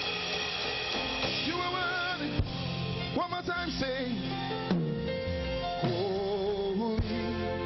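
Live praise and worship music: a voice singing with wide vibrato over a band with sustained keyboard-like tones and occasional drum hits.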